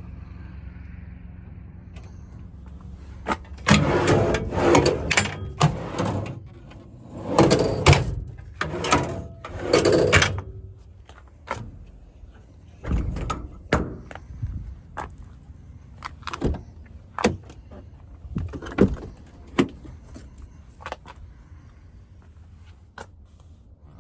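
Metal clanks, thunks and rattles from a service-truck body's compartment doors and drawers being opened and shut. The handling is busiest from about four to eleven seconds in, then thins out to single knocks.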